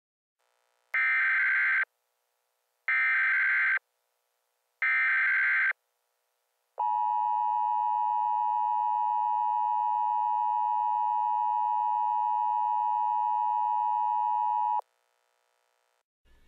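Emergency Alert System header: three short bursts of screeching digital data, each about a second long and a second apart. Then a steady electronic attention tone sounds for about eight seconds and cuts off abruptly. Together they signal the start of a new alert.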